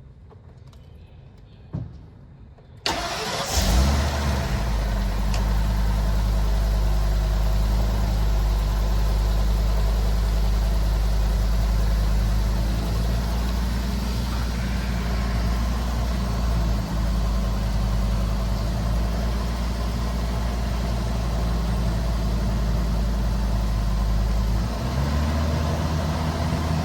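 Ford 6.8L V10 gas engine of a 2014 E-450 ambulance starting about three seconds in, after a short click, then idling steadily. Near the end the engine speed changes as the engine control module adjusts it during the key-on engine-running self-test.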